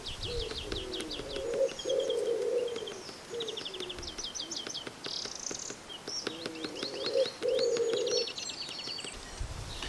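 Small birds chirping in quick, repeated trills, with a pigeon cooing in two phrases, about two seconds in and again near seven seconds.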